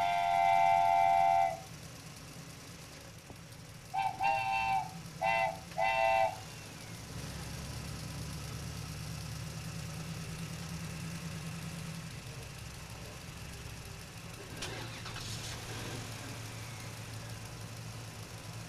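Vehicle horn honking, one long honk and then three short honks, followed by an engine running steadily with a low hum.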